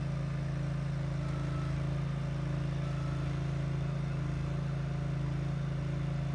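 Small engine of a modified ride-on mower used to unclog a flooded sand bunker's drain, running steadily at an even pitch, like a lawnmower.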